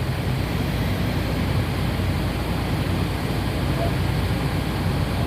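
Fire engine running at pump pressure while master-stream monitors flow large volumes of hydrant water: a steady low engine rumble under an even rush of water.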